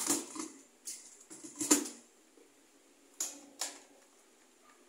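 Sharp plastic clicks and knocks as the motor head of a stainless-steel wet-dry vacuum is pressed down and seated on its drum: about six separate clacks, the loudest a little under two seconds in.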